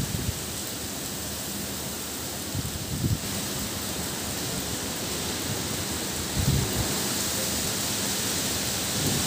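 Heavy rain falling steadily in strong cyclone wind, a constant hiss. Brief low thumps break through twice, about three seconds in and again about six and a half seconds in.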